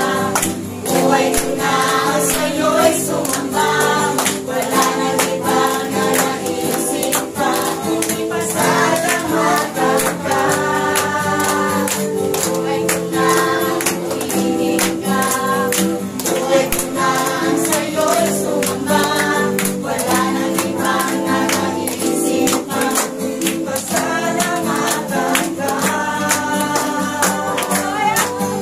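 Congregation singing a Tagalog praise song together, with hand clapping on the beat.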